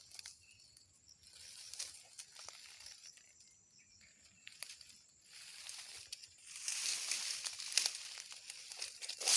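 Rustling and crackling, quieter at first and growing louder about two-thirds of the way in, with a faint high steady whine through the first half.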